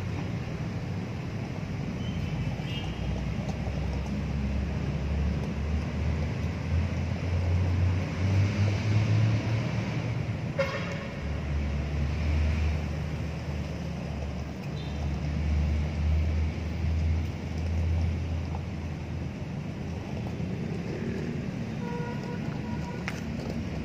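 Road traffic running steadily, a low rumble of passing vehicles, with a short car horn toot near the end.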